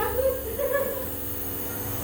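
A young child's short whining vocalisation in the first second, over the steady hum of a running steam-therapy inhaler machine.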